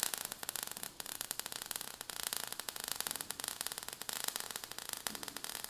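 Crackling sparks sound effect: a dense, irregular run of small pops over a faint hiss.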